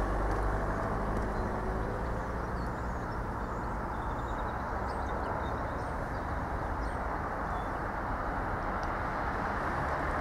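Train running past at the station, a steady rolling rumble, with a low engine hum strongest in the first couple of seconds.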